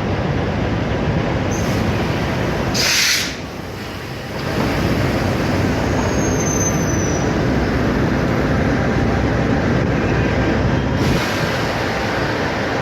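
Train rolling along the track, a steady loud rumble of wheels on rails. A short hiss comes about three seconds in, the sound dips for about a second, then the rumble returns, with a faint high wheel squeal in the middle.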